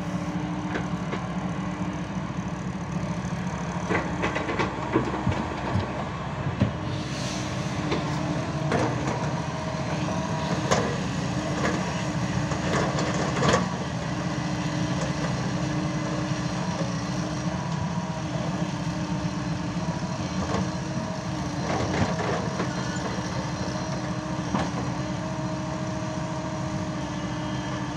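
Hyundai 140 hydraulic excavator's diesel engine running steadily with a held hum, as the machine digs and loads soil. Short knocks and rattles of the bucket in dirt and stones come in clusters, most between about four and fourteen seconds in and again near twenty-two seconds.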